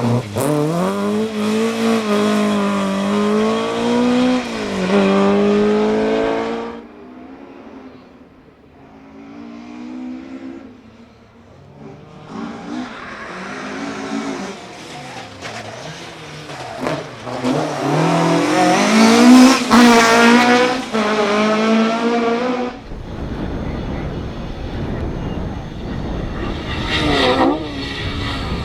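Classic Ford Escort rally cars running flat out, one after another. Their engine notes climb and drop sharply through gear changes as they pass. Partway through the engine sound fades low for a few seconds, and near the end a steady rushing noise comes before another car's engine rises.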